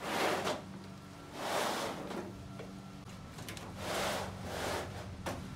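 Rubber-backed carpet mat being slid and pushed along a bare pickup truck bed: four scraping drags, each about half a second long.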